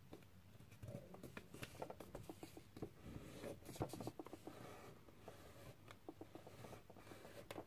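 Faint rustling and crinkling of a sheet of paper being folded and creased by hand, a run of small crackles and scrapes, most of them between about one and four seconds in.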